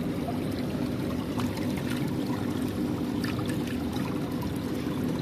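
Water from a tank filter's return pouring steadily into an outdoor goldfish tank, splashing and churning the surface, over a low steady hum.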